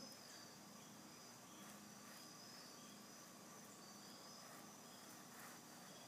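Near silence, with faint, steady insect chirping in the background.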